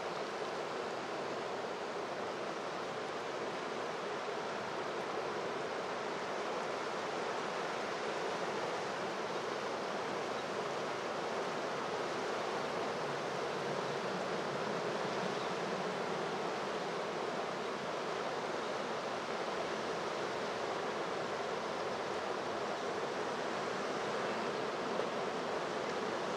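Oder river in flood, its fast brown water rushing and churning past the bridge piers, embankment walls and a snag of branches: a steady, unbroken rush of water.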